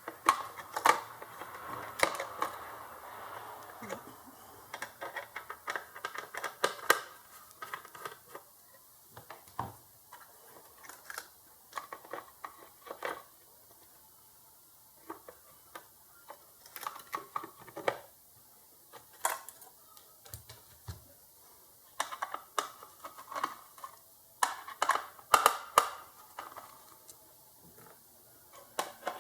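Scattered clicks, taps and light knocks of hands handling and fitting a circuit board and its parts, irregular, with some quick clusters of clicks and quieter gaps.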